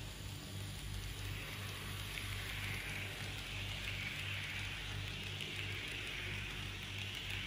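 H0 model freight train of metal container cars rolling along Märklin track: a steady hiss of wheels on rails that swells about two seconds in as the train comes close, over a low hum.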